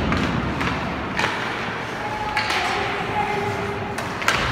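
Ice hockey game in an arena: sharp clacks of sticks and puck over a steady hum of the crowd, with the loudest bang near the end, such as a puck or player hitting the boards.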